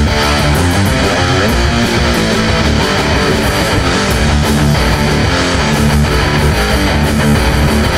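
Rock music built on a loud electric guitar riff, playing steadily with no break.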